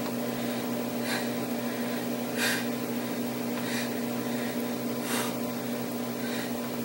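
A steady low hum of room equipment, with a short breathy exhale about every second and a half as a woman punches with light dumbbells in a held squat.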